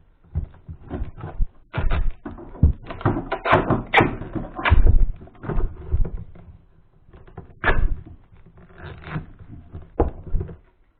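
Handling noise from reassembling a metal detector: irregular knocks, clicks and rustling as its plastic cover and parts are fitted back on.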